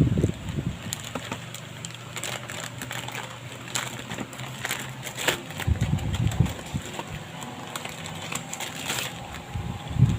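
Washing machine water hose and its fittings being handled: a string of light clicks and knocks, irregular and scattered.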